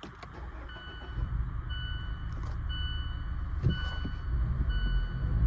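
A 2016 Mazda 3's four-cylinder engine starting and settling into a steady idle, run to check a cylinder 2 misfire after the ignition coils were swapped. A short electronic warning chime beeps about once a second over it.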